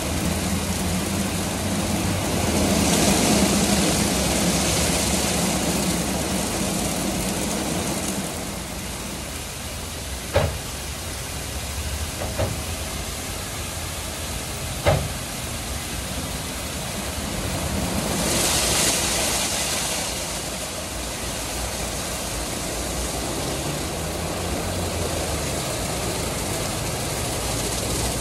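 WashTec EasyWash rollover car wash at work: the gantry's motors hum steadily while its foam brushes rotate against the car and water spray hisses. The hiss swells twice, about three seconds in and again around eighteen seconds. There are a few short sharp knocks between about ten and fifteen seconds in.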